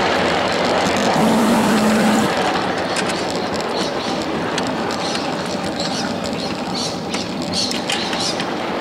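Miniature ride-on live-steam train running along its track: a steady rattle of wheels and cars, with sharp clicks over the rail joints through the second half. About a second in, a brief steady tone with a hiss sounds for about a second.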